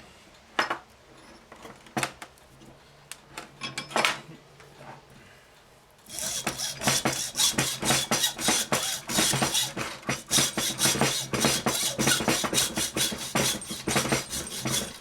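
A few scattered metallic knocks and clanks, then about six seconds in a hacksaw starts cutting through a small transformer's copper windings: steady, rapid rasping strokes that run on to the end.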